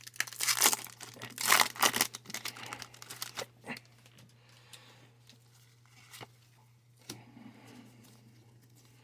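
A foil Pokémon booster pack being torn open and crinkled, loudest in the first two seconds. Fainter scattered rustles and a few sharp clicks follow.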